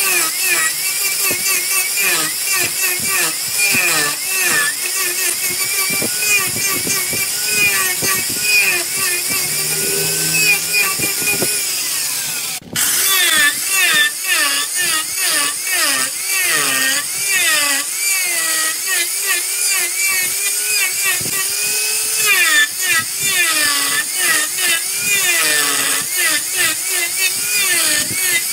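Angle grinder cutting into a wooden vase blank spinning on a lathe; its whine dips in pitch and recovers over and over as it bites into the wood, with a brief break near the middle.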